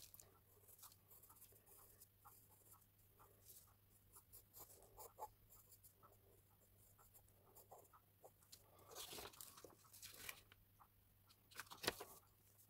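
Faint scratching of a 2B carbon pencil sketching in short strokes on hot-pressed paper. Near the end come a louder rustle and a sharp tap as the hand leaves the paper.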